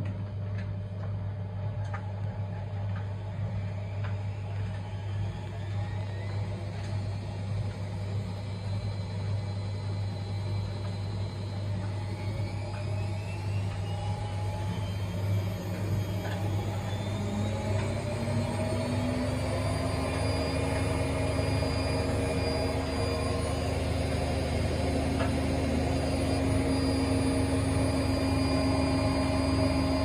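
Zanussi IZ front-loading washing machine running a service-mode spin. The drum turns with a steady low hum at first, then from about twelve seconds in a whine rises as the drum speeds up. It levels off near twenty seconds into a steady, higher-pitched fast spin.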